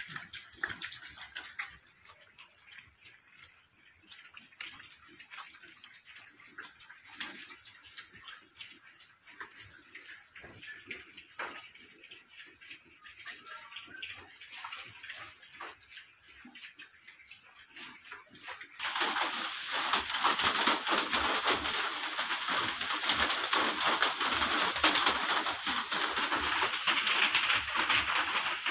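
Quiet scattered clicks and rustles, then about two-thirds of the way in a sudden loud, steady rush of water that continues.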